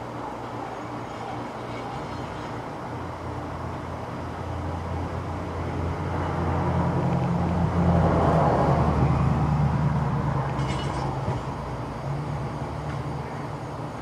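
A heavy road vehicle passes by with a low engine drone, growing louder to a peak about two-thirds of the way through and then fading, with a short high hiss just after the peak.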